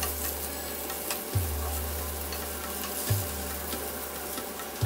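Spiced taro (colocasia) pieces sizzling in oil in a stainless steel pan, stirred and scraped with a wooden spatula. A low thud sounds three times underneath, evenly spaced.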